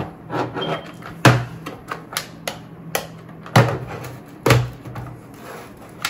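Plastic screwdriver toolkit case being handled and opened: a string of sharp clicks and knocks, loudest about a second in and twice more between three and a half and four and a half seconds in, over a low steady hum.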